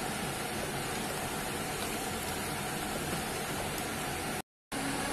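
Vegetables and stock simmering in a pot on the stove: a steady hiss that cuts out for a moment near the end.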